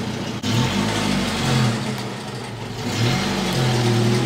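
Jeep engine revving after a sudden break about half a second in. Its pitch rises, holds, sags around two seconds in and rises again near three seconds. The engine has only just been got running again after sitting for weeks.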